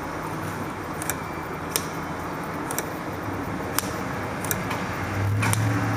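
Small, sharp metal clicks and taps, about six of them at irregular intervals, from handling the parts of a starter solenoid and its plunger during reassembly, over a steady low hum that grows louder near the end.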